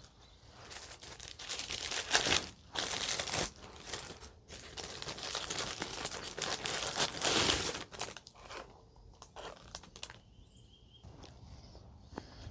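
Crinkling and rustling of plastic food packaging being handled and opened, in irregular bursts that thin out to a few faint rustles and clicks near the end.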